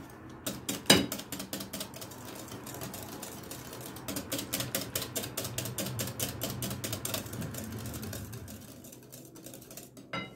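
Wire balloon whisk beating a runny egg and sour-cream batter in a glass bowl, its wires clicking rapidly against the glass, with one louder knock about a second in. The whisking tails off near the end.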